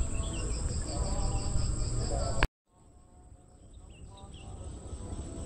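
Outdoor evening ambience: steady high-pitched insect chirring with short bird chirps over a low rumble. About halfway through there is a sharp click, the sound drops out briefly, then fades back in.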